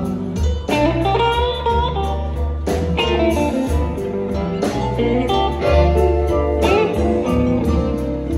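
Live blues band playing an instrumental passage: electric guitar lines over bass and drums, with no vocals.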